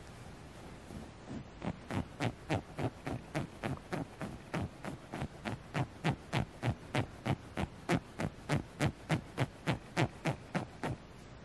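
Fingernails scratching the plush fabric of a Squishmallow stuffed toy in quick, even strokes, about three a second. The strokes are soft at first and grow louder after a second or two.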